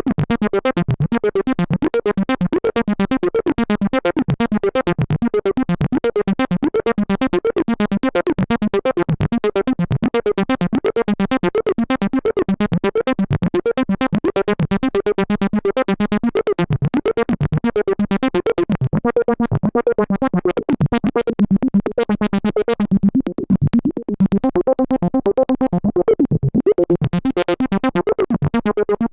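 Behringer System 100 analog modular synthesizer playing a fast, sequenced acid bass line of short repeated notes. The tone turns duller a little past halfway, then brightens again near the end.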